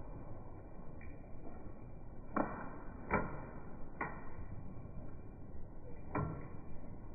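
Pump paintball marker: a few sharp, short clicks at irregular intervals, the loudest three close together in the middle, over a faint steady background.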